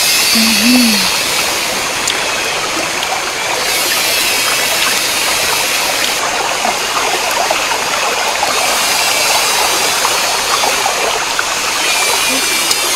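Running water of a stream, a steady, even rushing flow.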